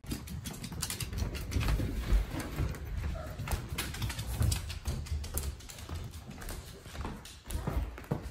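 Rapid, irregular clicking of a small dog's claws on a hardwood floor, over the low thuds of a person's footsteps walking along with it.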